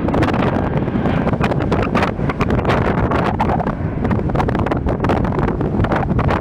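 Strong wind buffeting the microphone: a loud, continuous rumble with rapid irregular gusty thumps.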